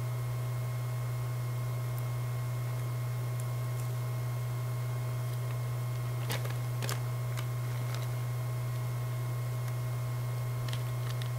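A steady low electrical hum with fainter, higher whine tones is the loudest sound. Over it come a few soft clicks and crinkles from the clear plastic iPod Touch box being handled as he works a piece of plastic off it: two a little past the middle and a few more near the end.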